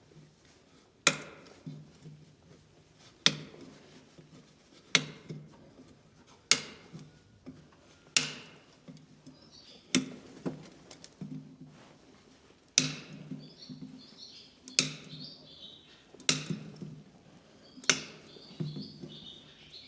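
Farrier's hammer blows on metal, single sharp strikes about every one and a half to two seconds, each ringing briefly and followed by lighter taps. Birds chirp faintly in the background.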